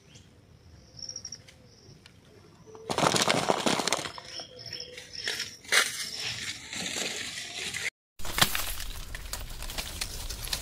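A few faint, short bird chirps over quiet outdoor air. About three seconds in, a loud stretch of rustling noise begins. Later, leaves and branches rustle and snap as ripe cashew fruit is pulled from a cashew tree.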